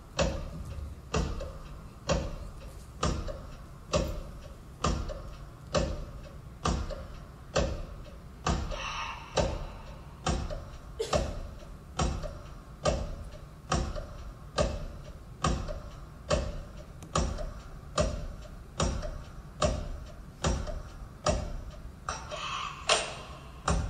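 Steady clock-like tick-tock in a performance soundtrack, about two ticks a second with every other tick louder.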